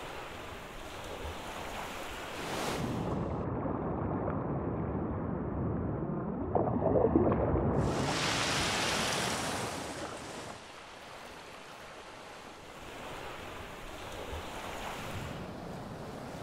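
Ocean surf and wind. From about three seconds in the sound turns muffled, as if heard underwater, with a louder bubbling rush near the middle. Then a bright rush of water takes over for a couple of seconds before the surf comes back more quietly.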